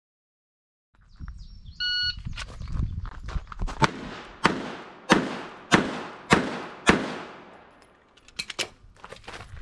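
A shot-timer beep about two seconds in, then six 9mm pistol shots in quick succession, about two-thirds of a second apart, from a Glock 43X fitted with a compensator; fainter sharp clicks follow near the end.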